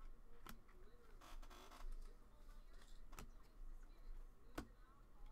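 Faint handling of trading cards: three sharp clicks spread a second or two apart and a brief rustle about a second in, as cards are flipped and slid through the hands.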